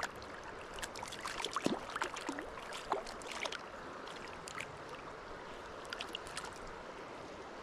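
River current running steadily, with bursts of small, sharp splashes in the first few seconds and again about six seconds in, as a hooked cutthroat trout thrashes at the surface while being brought in.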